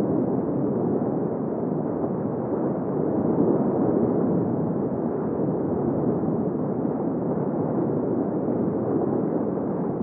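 Underwater ambience: a steady, muffled rushing rumble of water with no distinct events.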